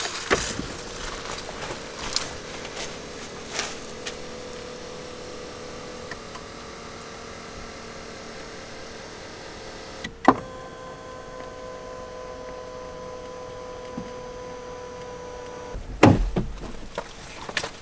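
A small electric motor in the Land Rover Defender 110's cabin whines steadily, like a power seat or power window being driven. A sharp click comes about ten seconds in, then a second, higher motor whine runs for about five seconds, followed by a few thumps near the end.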